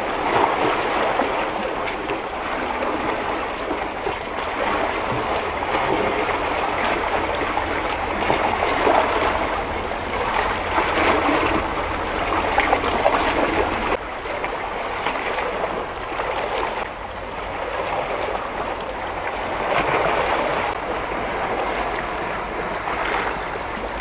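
Calm sea water washing and lapping against shore rocks: a steady watery hiss that swells and eases every few seconds.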